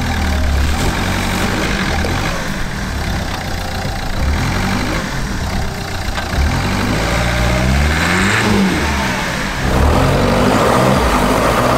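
Car engine revving up and down as its wheels spin in the snow, failing to pull away up a steep snowy slope. A louder rushing noise of the spinning tyres joins in from about ten seconds in.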